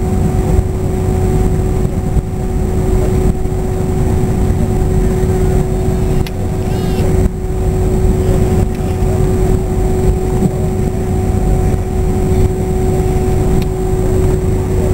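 Cabin noise aboard an Airbus A321 with its engines running: a steady low rumble and rushing hiss with a constant hum tone.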